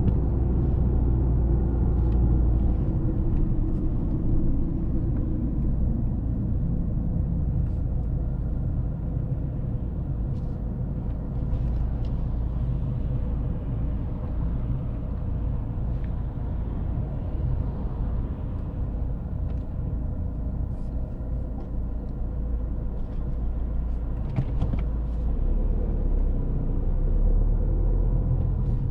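Volvo S40's 1.6-litre turbodiesel engine and tyre noise as the car drives along at a fairly steady pace, a continuous low rumble with a faint engine hum over it.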